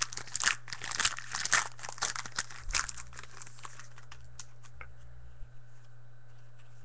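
A foil trading-card pack wrapper being torn open and crinkled, stopping about three seconds in; after that, only a few faint clicks as the cards are handled.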